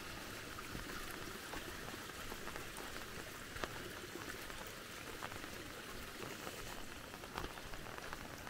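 Rainwater runoff trickling down a small erosion creek: a steady, quiet watery hiss, with a few faint scattered ticks.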